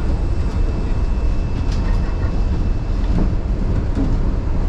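Shonan Monorail's rubber-tyred suspended car running along its track, heard from inside the cab: a steady low rumble with a few faint clicks.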